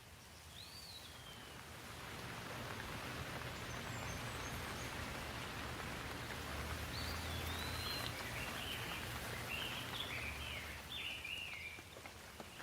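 Steady hiss of running water or rain, swelling about two seconds in and easing off near the end, under a low hum. A bird chirps once near the start and then in a run of short chirps through the second half.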